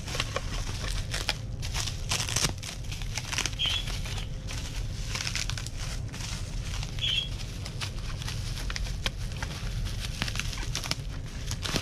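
Plastic bubble-wrap bag crinkling and rustling as it is handled, with irregular crackles.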